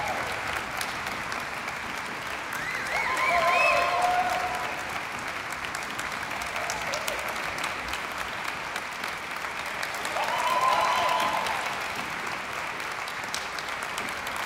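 Concert audience applauding steadily, with voices calling out above the clapping twice, a few seconds in and again about ten seconds in.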